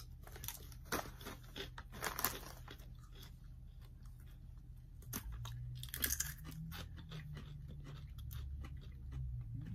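Two people crunching and chewing dried carrot veggie chips, a run of sharp, irregular crisp crunches.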